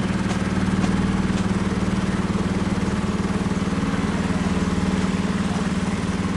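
Motorboat engine running steadily under way, an even low hum with a fast regular pulse that does not change.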